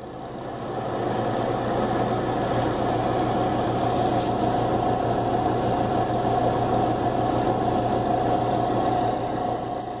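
A steady mechanical drone with a held mid-pitched tone, like an idling engine. It fades in over the first second or so and cuts off abruptly at the end.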